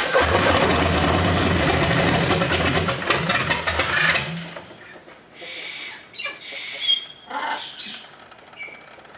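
A Vedeneyev M14P nine-cylinder radial engine running on a test stand, with a fast, even firing pulse. It shuts down about four seconds in and the loud running cuts off. Faint short chirps and squeaks follow.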